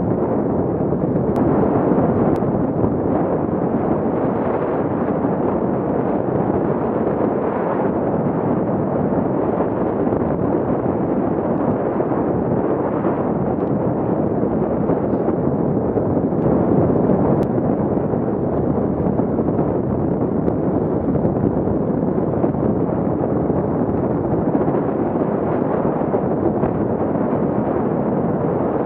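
Steady wind rushing and buffeting on a Garmin VIRB action camera's microphone while riding a fat bike at about 20 to 30 km/h.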